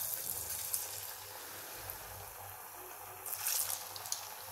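Potato nuggets deep-frying in hot oil in a pan: a steady sizzling hiss of bubbling oil, with a louder spell of crackling about three and a half seconds in.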